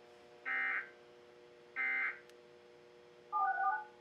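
Emergency Alert System end-of-message data bursts from a DASDEC II-IR encoder/decoder: two short, identical digital tone bursts about 1.3 seconds apart, each about a third of a second long, signalling the end of the relayed alert. Near the end a brief, lower, broken electronic beep follows, over a faint steady hum.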